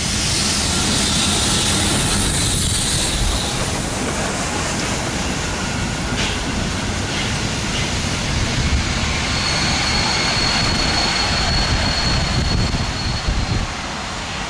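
Italian FS class 625 steam locomotive 625.177 passing close, tender-first, with a hiss in the first few seconds, then its vintage passenger coaches rolling by as the train pulls into the station. A thin, steady high squeal, typical of wheels or brakes on the coaches, sounds from about ten to thirteen seconds in.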